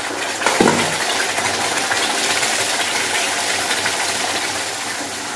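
Wet ground masala paste sizzling steadily as it fries in hot oil in a kadhai, with a single knock about half a second in.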